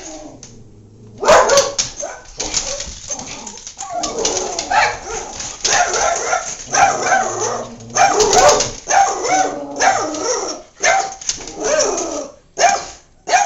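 Dogs barking loudly and repeatedly, starting about a second in and going on almost without a break. This is reactive barking at the window, at whatever the dogs can see outside.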